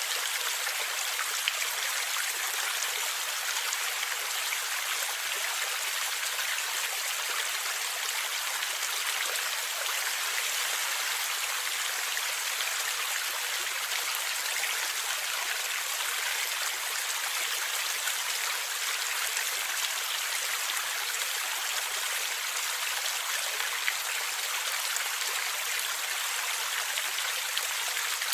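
Stream water flowing and gurgling: a steady, even rush that is mostly high and hissy, with no deep rumble and a couple of faint ticks.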